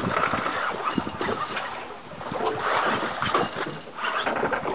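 Wind and water noise on a small boat at sea: an uneven rushing, with water slapping against the hull.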